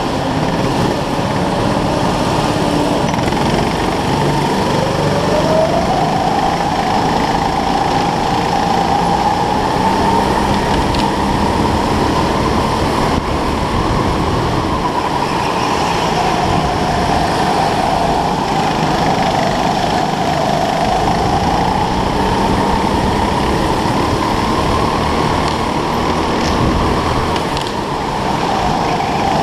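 Onboard sound of a racing go-kart at speed: a steady rushing, rattling noise under a motor whine that rises and falls in pitch as the kart accelerates and slows through the corners.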